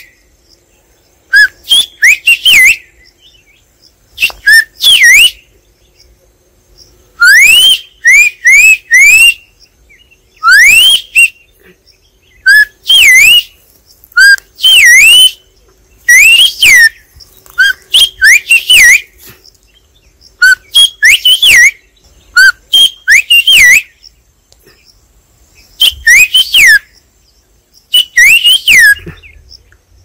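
A man whistling bird-call imitations through his cupped hands: loud, clear whistled notes that sweep up and dip, in short bursts of a few notes each, repeated about every two seconds with brief pauses between.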